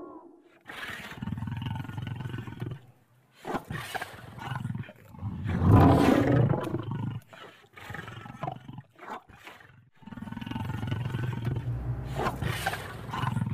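Growls and roars of the Mr. Howle werewolf animatronic, about five separate roars with short gaps between, the loudest about six seconds in.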